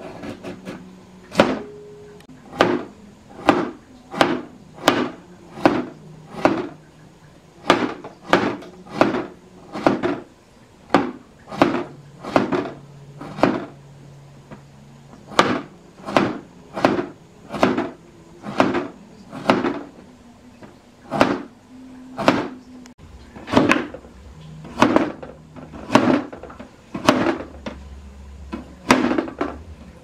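A heavy cleaver chopping a carrot on a cutting board: a sharp knock every half second or so, in runs broken by short pauses.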